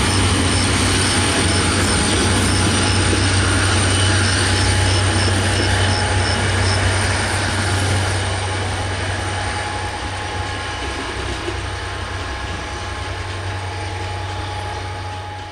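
Passenger coaches of a diesel-hauled train rolling past on the rails, with a steady low drone underneath and a faint high ticking about twice a second. After the last coach goes by about eight seconds in, the sound gradually fades as the train pulls away.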